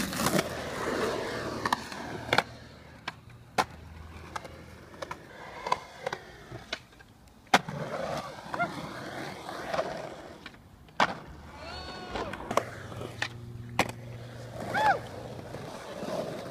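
Skateboard wheels rolling on concrete, with sharp clacks of the board hitting the concrete scattered throughout.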